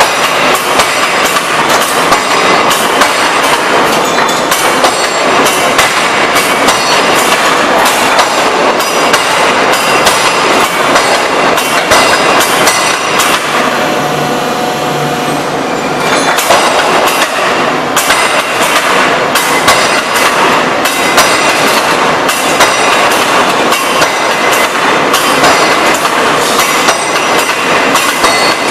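A 3-ton hydraulic open die forging hammer striking a workpiece in rapid, regular blows, about two to three a second. The blows pause for a couple of seconds about halfway through, then resume.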